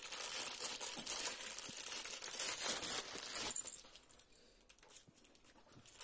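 Thin plastic packaging bag crinkling and rustling as it is handled and pulled off a door closer's metal arm, stopping about three and a half seconds in.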